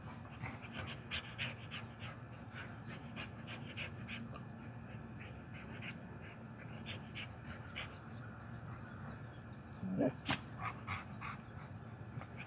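A dog panting in quick, even breaths during a break in rough play. One short, louder sound with a rising pitch comes about ten seconds in.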